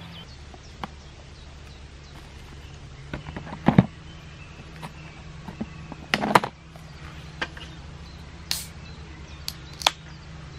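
Handling noises: a scatter of short clicks and knocks, the loudest about four and six seconds in, over a steady low hum.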